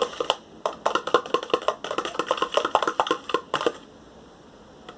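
A metal fork stirring shampoo into water in a container, clicking against the sides in rapid strokes, several a second; the stirring stops about four seconds in.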